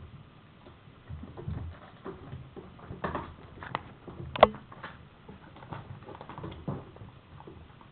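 Kittens scampering and playing on a wooden floor and in a fabric play tunnel: light pattering of paws, rustling of the fabric and scattered small knocks, with one sharp knock about halfway through.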